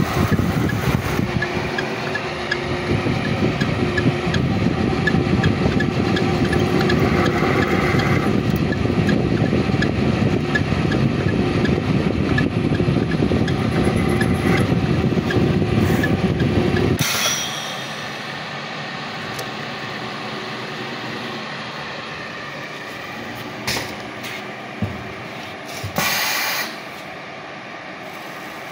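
CNC-4040 milling machine's spindle and end mill cutting steel, a loud steady cutting noise that stops with a short burst about 17 seconds in. After that the machine hums more quietly, with a few short clicks and a brief hiss near the end.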